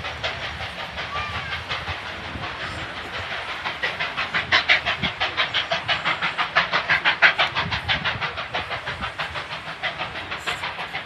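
Steam locomotive 3801, a NSW 38 class Pacific, chuffing as it hauls its train away. Its exhaust beats come quick and even, about five a second, and grow louder around the middle.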